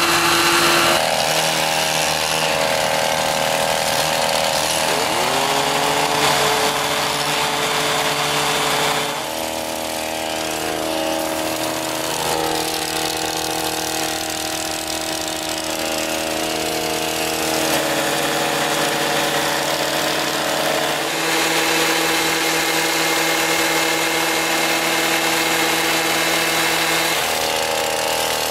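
Hand-held mechanical olive harvesters running on small engines, more than one at a time, a steady engine note whose pitch shifts every few seconds, with brief rises as an engine revs up near the start and about six seconds in.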